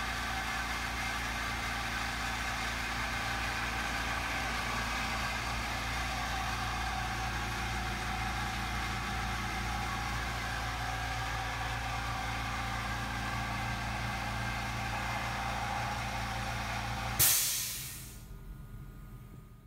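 An electric vacuum motor running steadily with a hum and whine. About seventeen seconds in it stops with a sharp burst, and the sound winds down over the next couple of seconds.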